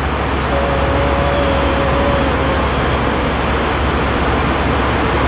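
Steady cabin noise of an Airbus A320 in flight: an even rush of engines and airflow, heaviest in the low end. A faint steady whine rises out of it for about two seconds near the start.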